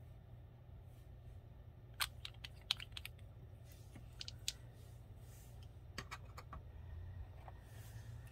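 Scattered small clicks and taps of a gel polish bottle and brush being handled, capped and set down on a table, in a few quick clusters over a low steady hum.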